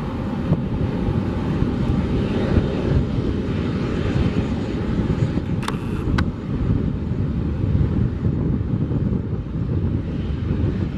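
Boeing 737-500's CFM56 jet engines running, a steady heavy rumble as the airliner rolls out along the runway after landing.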